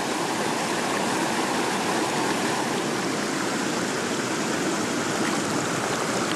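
Fast-flowing river rushing steadily, an even noise of running water.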